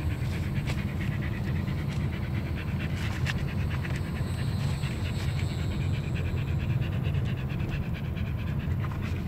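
A dog panting steadily, over the low rumble of the car driving along.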